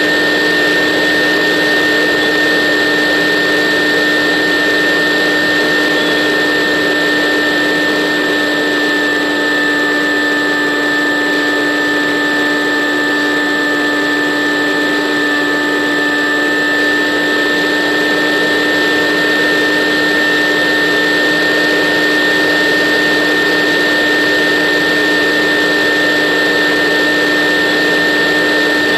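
A model aircraft's electric motor and propeller running steadily at constant speed, heard from a camera riding on the aircraft: a continuous whine with a low hum, over rushing air.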